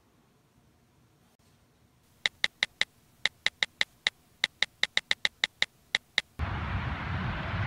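iPhone keyboard clicks as a message is typed: about twenty quick ticks, irregularly spaced like typing, starting about two seconds in. Near the end a steady low outdoor noise cuts in abruptly and is louder than the clicks.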